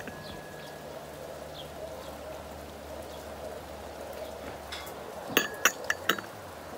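Steady rain falling, and near the end a Turkish tea glass set down on its metal saucer, clinking about four times with a short ring.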